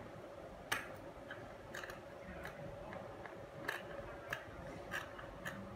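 Scissors snipping through a taped-down cloth: a string of sharp, irregularly spaced clicks as the blades close, several in a few seconds.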